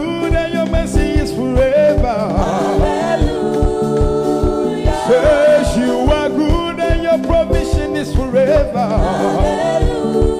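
Gospel praise music: voices singing with wavering, sustained notes over a band, with a steady drum beat underneath.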